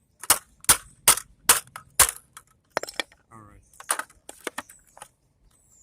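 A desktop computer case being struck to force it open: five sharp blows in quick succession, about two a second, followed by scattered lighter clicks and rattles.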